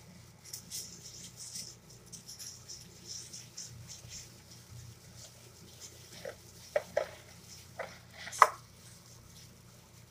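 Plastic-gloved hands rubbing a tomato-paste marinade into a raw whole chicken in a plastic basin: wet squishing of the meat and crinkling of the thin gloves, with a few short, sharper sounds near the end, the loudest about eight seconds in.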